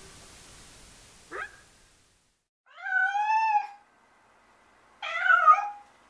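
Domestic cat meowing twice: one long meow that rises and falls, then a shorter second meow about two seconds later. A brief, quieter call comes about a second before the first meow.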